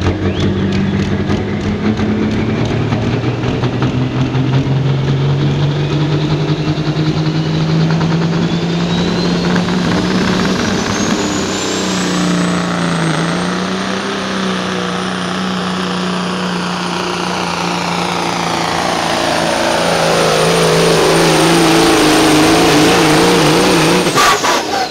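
Pro stock semi truck's turbocharged diesel engine at full throttle pulling a weight sled, with a high turbo whistle that climbs over a few seconds and then holds. The engine cuts off suddenly near the end.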